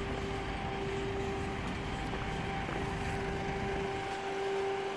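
City street background noise: a steady rumble and hiss with a constant mid-pitched hum running through it.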